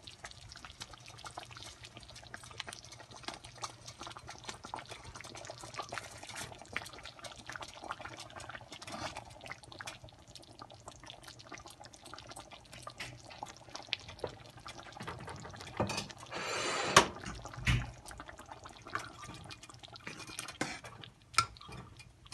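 Thick jaggery-and-sesame rice pudding bubbling in a steel pan, a steady run of small pops and plops as the bubbles burst. About sixteen seconds in comes a louder scrape with a couple of knocks.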